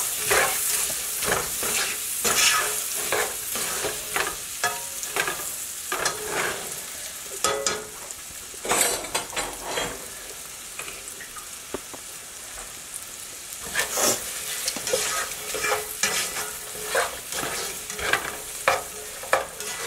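Diced red onion sizzling as it sautés in melted butter in a nonstick pan, with a spatula scraping and stirring it in irregular strokes. The stirring pauses for a few seconds past the middle, leaving only the steady sizzle, then starts again.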